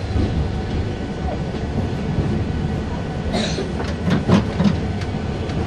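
Hiroshima Electric Railway streetcar running on street track, heard from inside the driver's cab: a steady low rumble of wheels and motor. About three and a half seconds in there is a brief high-pitched hiss, then a few sharp clacks from the wheels on the rails.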